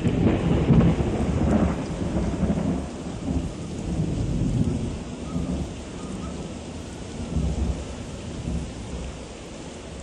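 Storm wind buffeting the microphone in uneven gusts, loudest and fullest in the first two seconds, with a steady hiss of heavy rain and surf underneath.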